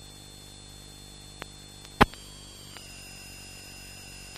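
Steady low hum and hiss with faint high whines, broken by one sharp click about two seconds in and a couple of fainter ticks around it.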